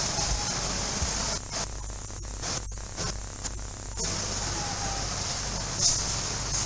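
Steady hiss of background noise with no clear voices, dropping away for about two and a half seconds near the middle.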